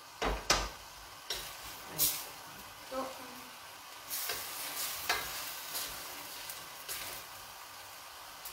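Wooden spoon stirring ossobuco and chopped vegetables in a stainless steel pot, scraping and knocking against the pot about once a second over a steady sizzle from the pan.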